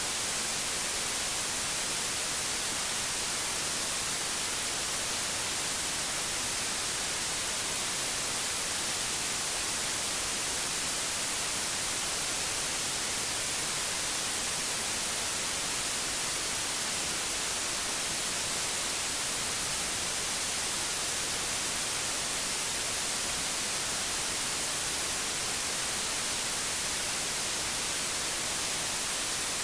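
Steady white noise: an even, unbroken hiss, strongest in the high treble, with no change in level.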